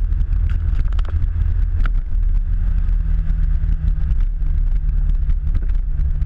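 Enduro motorcycle engine running under way, its note stepping up and down in pitch a few times, under heavy wind buffeting on the microphone. Scattered light clicks sound throughout.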